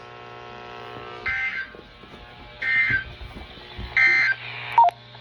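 NOAA Weather Radio receiver playing the EAS end-of-message digital signal: three short, raspy two-tone data bursts a little over a second apart, which mark the end of the alert broadcast. A faint steady hum sits under them, and a brief blip follows near the end.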